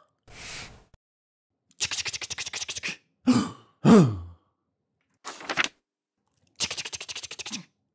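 Mouth-made cartoon sound effects from a voice actor. A short hiss comes first, then a quick run of clicking rattles, two falling voiced whoops, another brief hiss and a second clicking run near the end.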